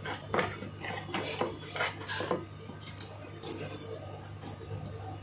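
Small plastic and metal parts of a dome CCTV camera clicking and clattering irregularly as they are handled and fitted back together by hand, over a low steady hum.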